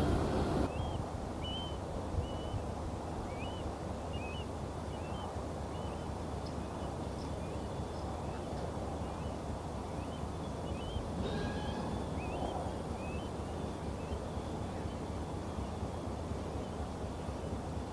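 Songbirds chirping, short rising-and-falling notes repeated every second or so, over a steady outdoor background hiss. A louder sound cuts off abruptly just under a second in.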